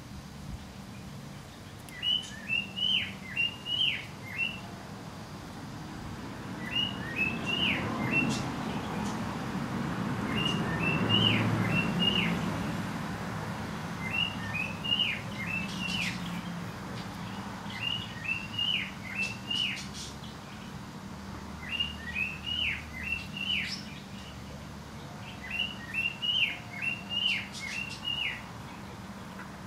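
A songbird singing the same short phrase of four to six quick high notes, about every four seconds, seven times. A low rushing sound swells up and fades away in the middle.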